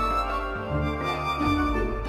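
Background music: melodic instrumental with sustained notes over a bass line that changes about every half second to second.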